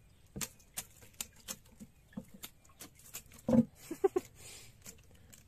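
Irregular sharp clicks and taps of a wire-mesh shrimp trap being handled on wooden boards, with a louder thump about three and a half seconds in and a few short higher-pitched blips just after it.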